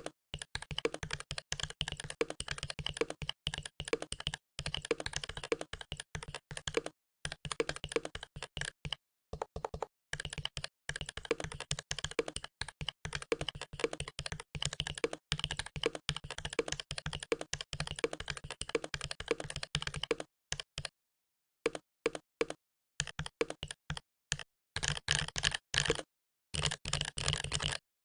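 Ducky One 2 SF mechanical keyboard with Cherry MX Red linear switches and PBT keycaps, typed on quickly and continuously. There is a brief pause about three quarters of the way in, then scattered single keystrokes and fresh runs of fast typing near the end.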